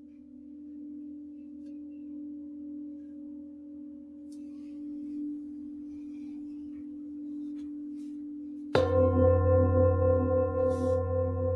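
A large metal singing bowl rings on steadily with a low tone and a softer one above it. About nine seconds in, a deeper singing bowl is struck, setting off a loud, deep ringing tone with many overtones that keeps sounding.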